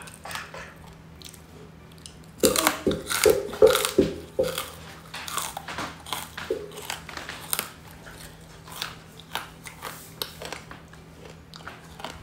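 Close-miked eating sounds: chewing with crunchy bites, loudest in a run of crunches from about two to four and a half seconds in, then lighter chewing.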